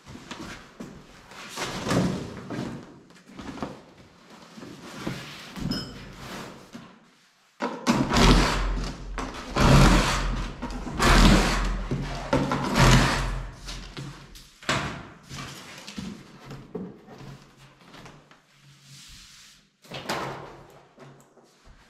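A large cardboard box being handled on a concrete floor and opened: cardboard scraping and rustling with knocks and thuds, heaviest in the middle stretch.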